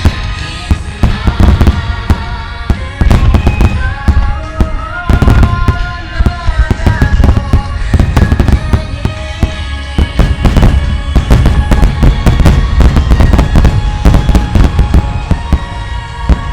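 Large aerial fireworks in a dense barrage, many loud bangs in quick succession, over music with a melody.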